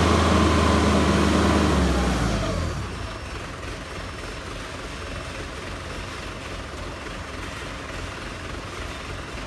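Diesel forklift engine, a Mitsubishi, running hard at high revs for about two seconds, then dropping back to a steady idle as the raised mast is let down.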